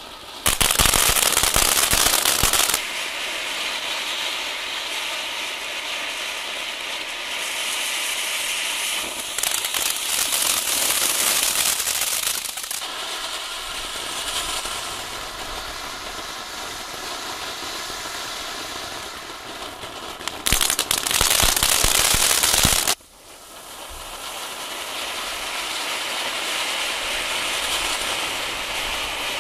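Small Category F1 firework fountains ('volcanoes') burning on the ground with a steady spraying hiss and crackle. There are two louder, denser crackling stretches: one about half a second in, lasting some two seconds, and one a little after twenty seconds, lasting about two and a half seconds, which cuts off suddenly.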